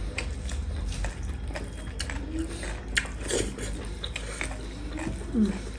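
Close-up eating sounds: mouth clicks and smacks of chewing, with fingers working rice on a metal plate, heard as many small irregular clicks.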